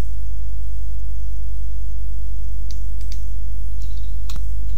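Steady low electrical hum picked up by the recording, with a few faint computer-mouse clicks in the second half.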